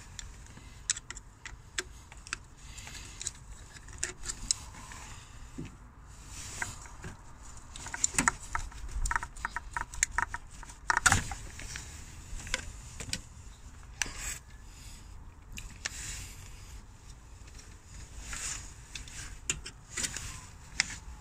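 Hands working the plastic hose connectors and body of an auxiliary heater water pump: scattered clicks, taps and rustling, with a busier run of louder clicks about halfway through.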